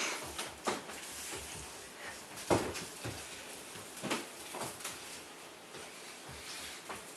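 A few scattered light knocks and scuffs, the loudest about two and a half seconds in, over a quiet room background.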